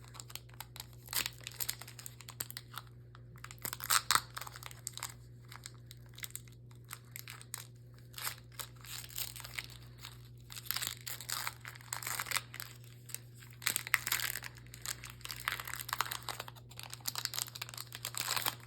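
Foil wrapper of a Pokémon Fusion Strike booster pack crinkling and crackling irregularly as it is handled and torn open, loudest about four seconds in.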